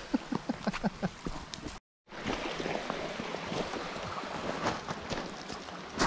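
Shallow creek running over stones, with splashes and watery blips from feet stepping through the water in the first two seconds. The sound cuts out briefly about two seconds in, then the creek's steady babble carries on.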